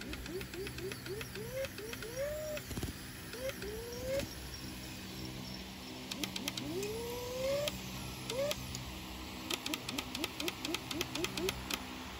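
Lure-coursing machine's drive motor whining in repeated short rising bursts, with a few longer climbs in pitch as the lure is pulled faster, over a steady low engine hum. Rapid ticking comes in over the last few seconds.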